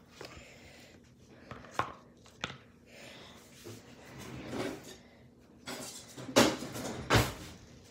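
Light knocks and clatter of kitchen things being handled and set down on the counter, including a plastic cutting board, with a heavier thump about seven seconds in.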